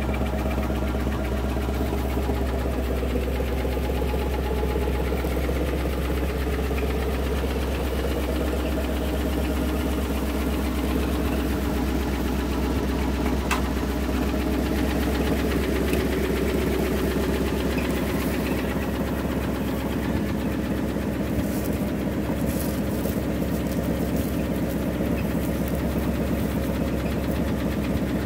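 1972 Ford F-350 wrecker's engine idling steadily.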